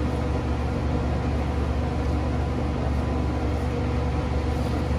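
Steady low mechanical hum, even in level throughout, from a running Pit Boss vertical pellet smoker's fan.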